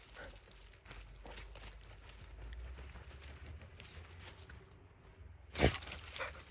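Scattered crackling and rustling on a forest trail, like paws or feet moving through leaf litter and twigs, with a low rumble underneath. A single loud bump about five and a half seconds in.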